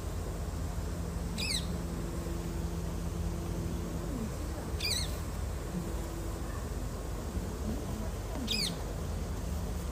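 A bird gives three short, high, wavering calls a few seconds apart, over a steady low background hum.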